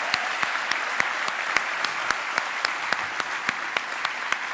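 An audience applauding steadily: a continuous wash of clapping with individual claps standing out sharply.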